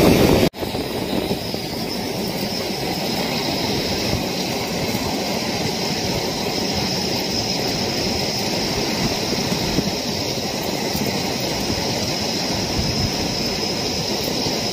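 Steady rushing roar of wind and sea surf on an open beach. It drops out abruptly about half a second in, then carries on evenly and slightly quieter.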